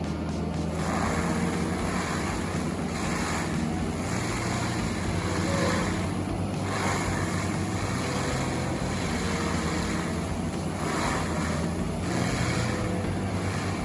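Heavy diesel machinery running steadily, with a rushing noise that swells every few seconds.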